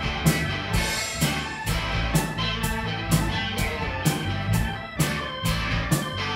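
A live band plays blues-rooted rock: electric guitar over bass and drum kit, with organ, to a steady beat of about two drum hits a second.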